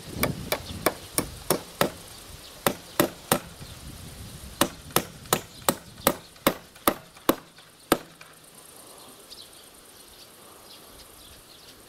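Hammer driving nails into a wooden log crossbeam to fasten a metal strap. The blows come in quick runs of about three a second, with short pauses between runs, and stop about eight seconds in.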